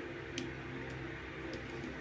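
Small magnetic balls clicking as they snap together, about five light clicks scattered over two seconds, over a faint steady hum.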